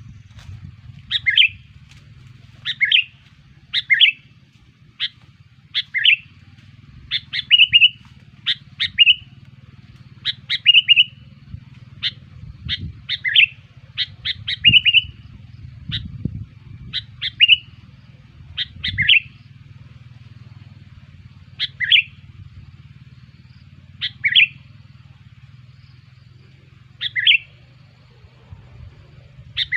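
Sooty-headed bulbul (kutilang) giving short, sharp chirping calls, about one every second at first and more spaced out towards the end, over a low steady hum.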